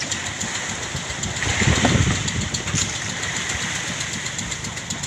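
Boat engine idling steadily with a fast low pulsing, with wind and water noise over it. A louder dull thump comes about two seconds in.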